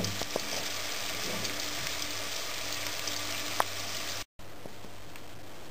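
Whole garlic cloves frying in plenty of oil in an enamel pan: a steady sizzle with a few sharp pops of spitting oil. The sound cuts out for a moment about four seconds in and comes back as a quieter, steady hiss.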